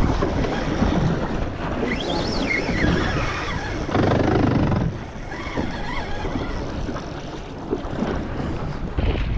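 Wind buffeting the microphone on a small fishing boat, over the wash of water around the hull.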